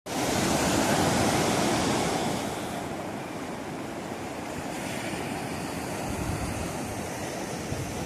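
Sea surf breaking and washing onto the shore in a steady rushing hiss. It is louder for the first two seconds or so, then eases to an even wash.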